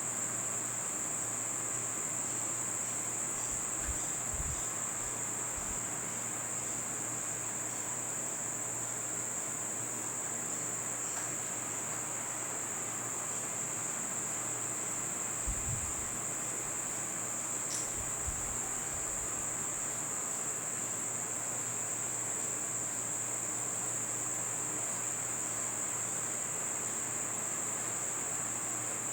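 Crickets chirring in a steady, unbroken high-pitched chorus, with a few faint low thumps.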